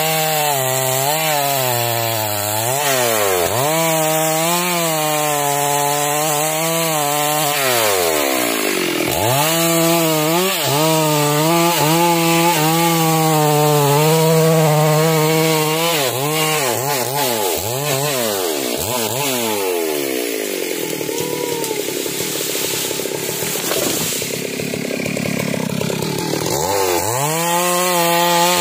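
Stihl chainsaw cutting through a tree trunk, its engine revving up and down again and again as it works under load. About two-thirds through it drops to a lower, rougher running for a few seconds, then revs back up near the end as it bites into the felled log.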